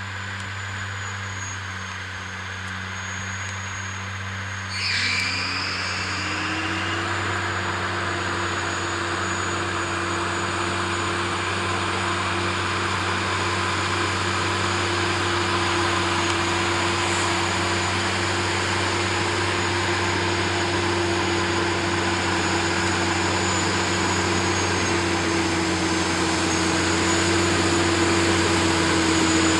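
A vehicle engine running steadily, slowly growing louder. About five seconds in there is a short high sound, and a hum rises in pitch and then holds steady.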